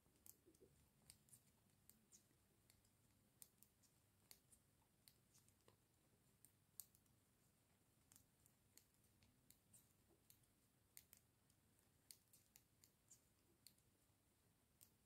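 Faint, irregular clicking of knitting needles, a few clicks a second, as a row of rice stitch (alternating knit and purl) is worked.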